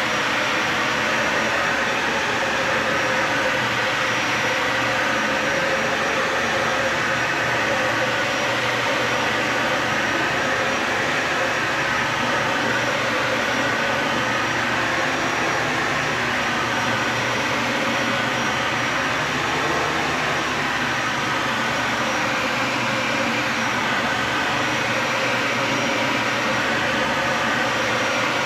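Dyson Ball Animal 3 upright vacuum cleaner running steadily on carpet, a constant rush of air and motor noise.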